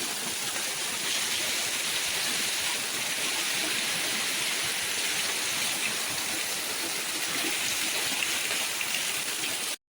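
Steady rushing of water, an even hiss with no rhythm or tone, which cuts off suddenly near the end.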